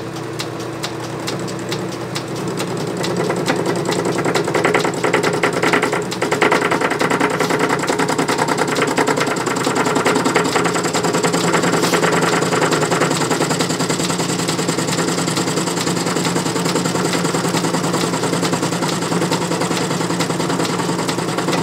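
Metal lathe taking a hand-fed interrupted cut on round bar stock: the machine's steady running hum under a rapid, even clatter as the cutting tool strikes the workpiece on every revolution. It grows louder over the first few seconds, then holds steady.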